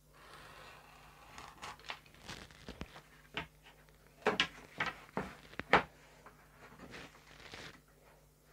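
Thin wood veneer strips handled on a workbench: a brief scraping rustle, then a series of light wooden clacks and taps as the strips are set down and stacked, with the loudest four a little past halfway.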